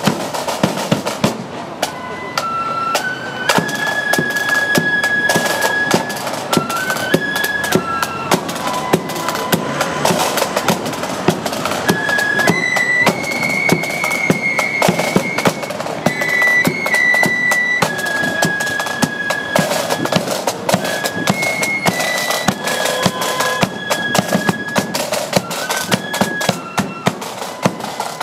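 Marching flute band playing a tune: flutes carry a stepping melody over a rapid, steady drum beat.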